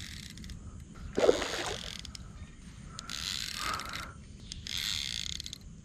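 Drag clicker on a Daiwa SS Air baitcasting reel buzzing in repeated short bursts as a hooked fish pulls line against the drag. A splash about a second in is the loudest sound.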